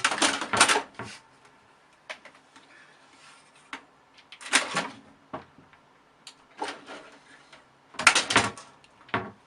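Several clusters of short knocks and rattles with quieter stretches between, like objects being bumped or moved about.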